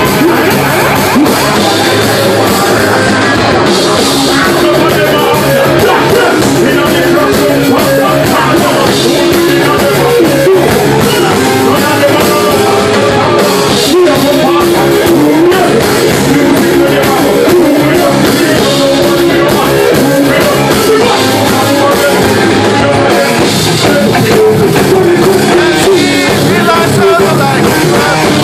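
Live reggae band playing loud, with drum kit and electric guitar, and vocalists singing into microphones.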